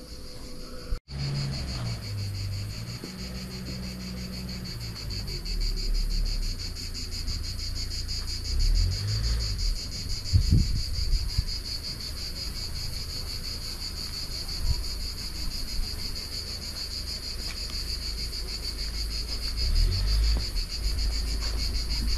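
Steady chorus of insects: a high, continuous buzzing with a fine, fast pulse, over a low rumble. There is a brief dropout about a second in.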